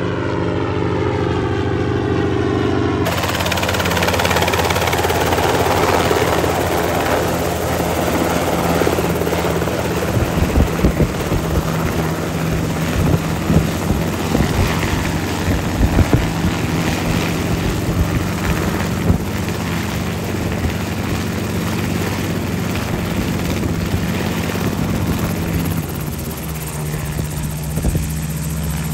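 Enstrom piston helicopter. For the first three seconds it flies past with its engine and rotor note falling in pitch. Then it runs steadily on the ground close by, main and tail rotors turning, with a low rhythmic rotor beat.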